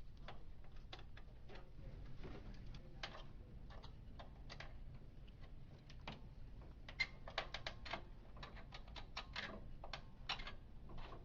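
Light, irregular clicks and taps of the printer's plastic top door and its hinge pins being worked loose by hand, with a quick run of clicks in the second half.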